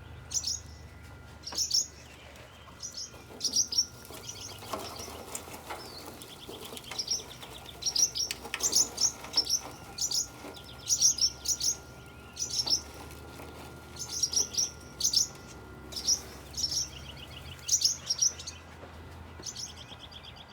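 Barn swallows giving repeated short, sharp high-pitched alarm calls, in clusters every second or so, with some buzzy chattering between: the birds are upset at a person close to their fallen nest.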